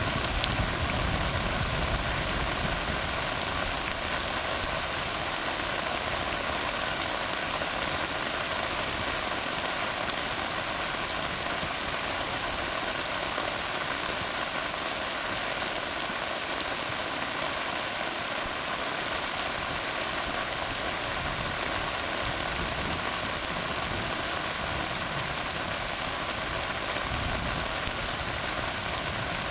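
Steady rain falling on a tarred road: a dense, even hiss of drops. A faint low rumble is stronger near the start and again near the end.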